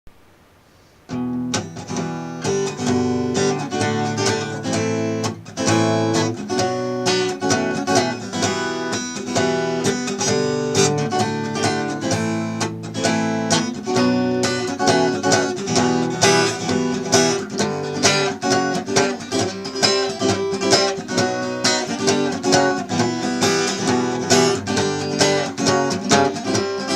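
Acoustic guitar playing an instrumental song intro, strummed and picked in a steady rhythm, starting about a second in.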